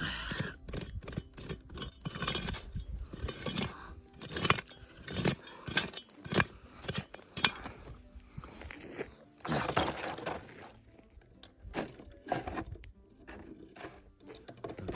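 Digging in stony creek dirt: a run of irregular scraping strikes, with stones and gravel clinking against the tool.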